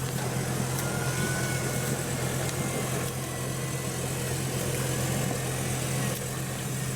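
Off-road 4x4's diesel engine running at a steady, even speed, with no revving.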